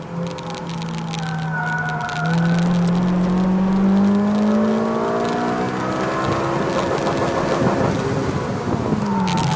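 2007 Honda Civic Si's four-cylinder engine, heard from inside the cabin, accelerating hard. Its pitch holds steady, then rises steadily for several seconds as the revs climb toward redline, and drops sharply near the end.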